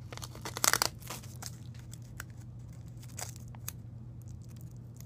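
Packaging torn open and crinkled by hand, loudest in a burst about half a second in, followed by lighter crinkles and small handling clicks over a steady low hum.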